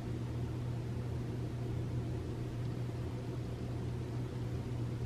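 Steady low hum with a faint even hiss, with no change or distinct events: indoor room tone.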